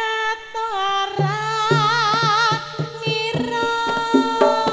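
Javanese sinden (female gamelan vocalist) singing long, ornamented held notes with a wide vibrato. About a second in, the gamelan accompaniment comes in under her with steady drum strokes.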